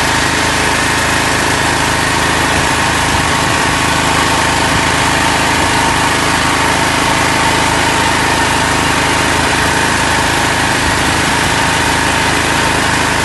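An engine running steadily at an even speed, with no change in pitch or level.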